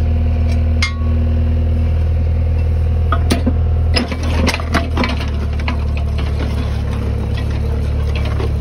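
Engine of the machine driving a post hole auger running steadily, with a cluster of knocks and clanks a few seconds in as the steel Badger post hole cleaner works a large rock out of the hole. The engine note shifts about five seconds in.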